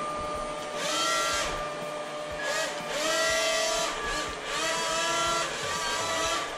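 TKKJ A1 toy RC hovercraft's small electric motors and twin propellers running with a steady high whine. The whine swells and rises in pitch several times as the craft is driven across a tabletop.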